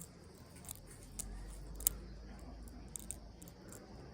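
Bobby pins used as a pick and tension tool, scraping and clicking inside the keyway of an Abus Titalium 80TI/40 padlock with security spool pins. There are a few small, sharp clicks, the sharpest about two seconds in.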